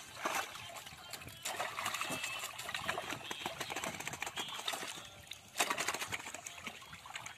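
Water splashing and sloshing as live fish thrash inside a fishing net held in shallow pond water, with irregular small splashes and a louder splash about five and a half seconds in.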